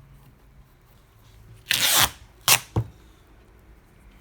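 Cloth tape pulled off its roll in one short rasp, followed by two sharp taps.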